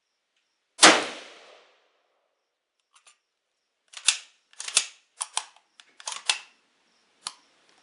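A single shot from a Yugoslavian SKS 59/66A1 7.62x39 rifle about a second in, with a short echoing tail. It is followed by a run of quieter, sharp metallic clicks and clacks over the next few seconds.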